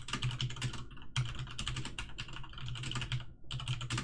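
Typing on a computer keyboard: quick runs of key clicks, broken by two short pauses.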